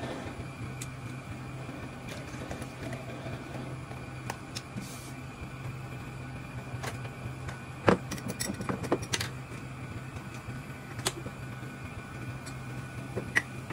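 Steady low hum of kitchen noise, with sharp clicks and knocks from about eight seconds in as a glass flip-top jar is opened and a spoon scoops flour from it; the loudest knock comes first.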